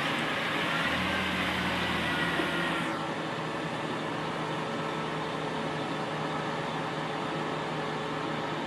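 Semi truck's diesel engine running steadily while its tipping bed lifts a load of hay bales. A hiss over the engine stops sharply about three seconds in, leaving a lower steady hum.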